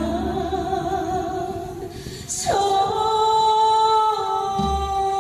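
A woman singing with musical backing: her line drops out briefly, then a quick falling sweep a little over two seconds in leads into one long held note. The low bass of the accompaniment falls away during the held note and comes back right after.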